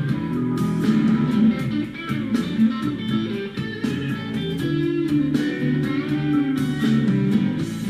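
Background music: a plucked guitar playing a bluesy tune with steady picked notes.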